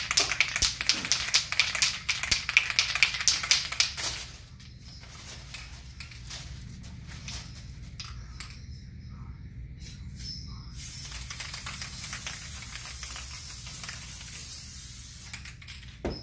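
Aerosol can of Elmer's Craft Bond spray adhesive spraying a light coat: a rapidly pulsing hiss for the first four seconds, a quieter gap, then a steady hiss for about four seconds near the end.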